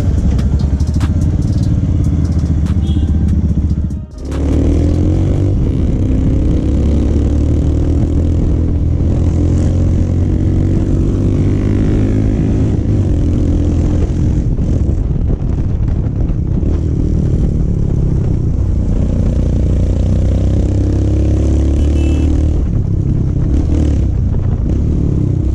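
Royal Enfield Himalayan's single-cylinder engine breathing through an aftermarket Akrapovic exhaust while riding: the exhaust note rises and falls repeatedly as the bike accelerates and shifts. There is a brief sharp drop in sound about four seconds in.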